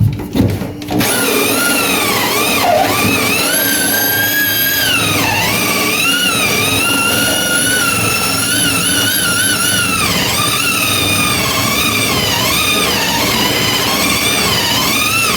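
Power drill boring through a wooden stud. A few knocks in the first second, then a steady motor whine whose pitch sags and rises as the bit loads up in the wood.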